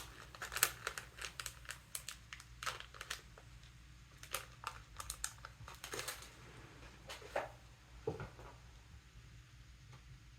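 Small plastic bag crinkling and rustling in the hands, in short irregular crackles, as a packet of replacement O-rings is got out; it dies away near the end.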